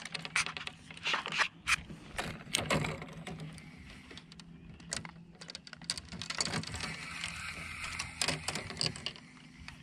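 Spinning fishing reel being cranked and rod tackle handled: irregular clicks and knocks, denser in the first few seconds, with a steadier mechanical whirr in the second half.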